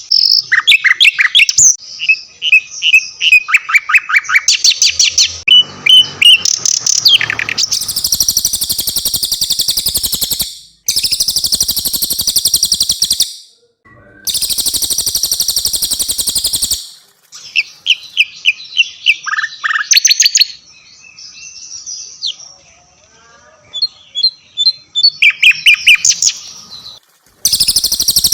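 Cililin and sikatan londo songbirds singing: quick high chirps and whistled phrases, broken by several long, rapid buzzing trills of two to three seconds each.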